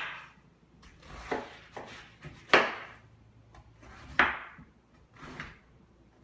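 A kitchen knife cutting a head of cabbage into quarters: four cuts, each a short crunch through the leaves ending in a knock of the blade on the cutting board, the middle two the loudest.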